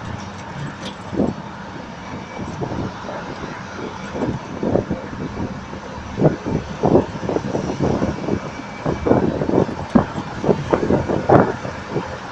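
Road and engine noise of a moving truck heard from its open bed, with irregular gusts of wind buffeting the microphone, coming more often in the second half.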